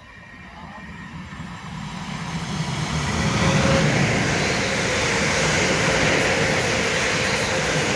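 Two coupled Class 350 Desiro electric multiple units approach and pass through the station at speed without stopping. The rush of wheel and air noise builds over the first three seconds, then holds loud and steady, with a faint steady tone.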